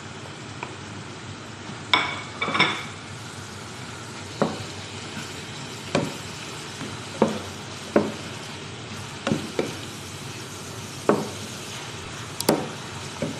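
Chicken strips and carrot sticks sizzling in a frying pan as a wooden spatula stirs them, knocking against the pan about every second or so. Two louder clinks come about two seconds in.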